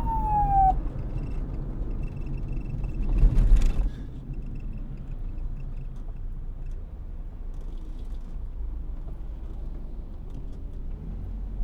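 A police siren's wail glides down in pitch and cuts off less than a second in, leaving a steady low rumble. A brief, louder rush of noise comes about three seconds in.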